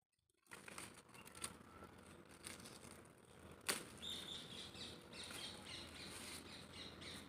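Faint rustling of mulberry leaves and twigs as a small mulberry tree's branches are handled and leaves picked, with one sharp click about halfway.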